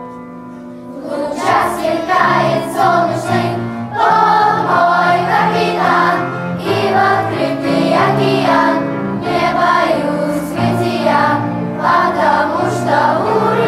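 Children's choir singing a song, the voices coming in strongly about a second in after a short quieter passage.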